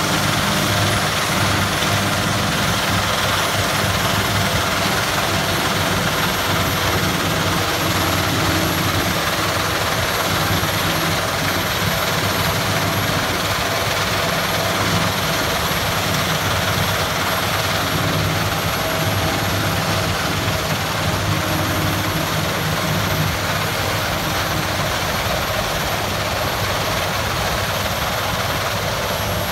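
Self-propelled forage harvester running steadily as it cuts and chops a standing fodder crop: a loud, even engine and machinery drone, with a thin high whine running above it.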